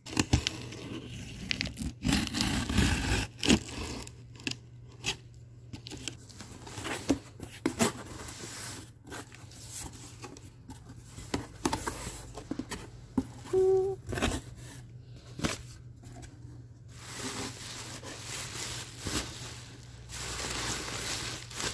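Cardboard box being opened: a box cutter slitting packing tape, then cardboard flaps pulled open and scraped, in irregular rips, clicks and scrapes. Near the end, a stretch of steadier crinkling as bubble wrap is handled.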